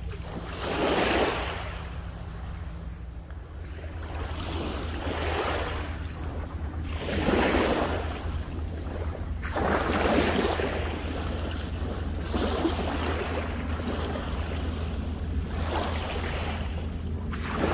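Small waves washing in over a flat sandy beach, each wash swelling into a hiss and fading every two to three seconds. Under it runs a steady low rumble of wind on the microphone.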